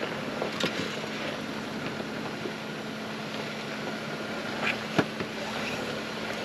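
Jeep Wrangler's engine running steadily at low revs as it crawls over rocks, a constant hum. A few short, sharp knocks sound over it, the loudest about five seconds in.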